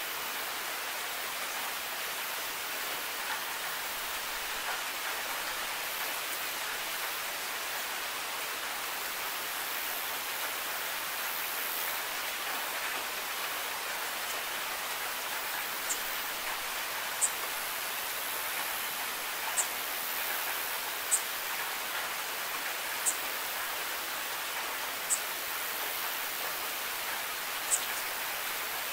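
Steady rain falling as an even hiss. In the second half, short sharp high ticks come about every two seconds.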